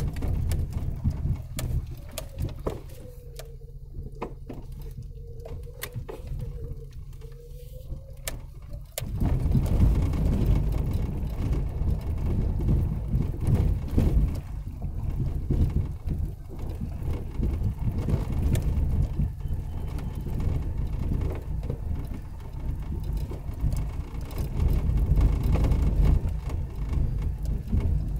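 4x4 vehicle driving on a rough dirt trail: a low engine rumble with many knocks and rattles. It drops quieter for several seconds near the start, then gets louder again about nine seconds in.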